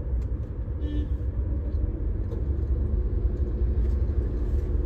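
Steady low rumble of a running car, heard from inside the cabin.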